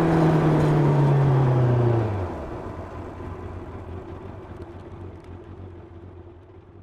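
1990 Yamaha FZR 600's inline-four engine, heard onboard, its revs falling steadily as the bike slows. About two seconds in the engine note drops suddenly to a low steady tone, which fades away.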